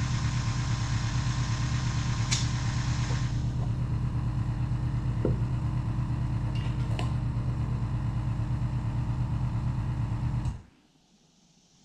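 Honda Benly 50's single-cylinder engine idling steadily, then switched off about ten seconds in, leaving near silence.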